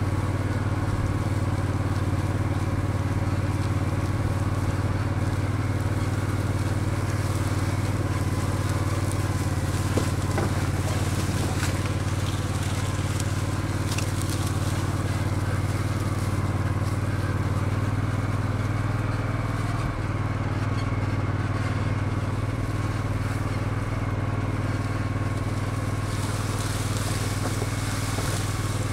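Engine of a small off-road vehicle running steadily while driving over harvested corn stubble, with crunching and crackling of dry stalks under the wheels. The engine note shifts slightly about two-thirds of the way through.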